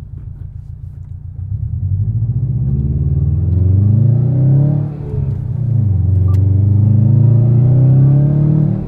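A 2018 Subaru WRX STI Type RA's turbocharged flat-four running through an Invidia Gemini R400 cat-back exhaust, heard from inside the cabin. It cruises at first, then the engine note rises and grows louder under acceleration from about a second and a half in. It dips briefly about five seconds in, then climbs again.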